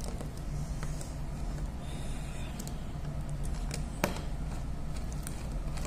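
A small screwdriver working a circuit breaker's screw terminal as a wire is tightened in, with one sharp click about four seconds in. A steady low hum runs underneath.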